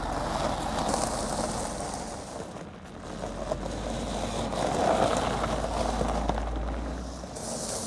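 Mercedes-Benz SL convertible moving slowly over a gravel driveway: engine running and tyres crunching on the gravel, with a steady low rumble from about three to seven seconds in.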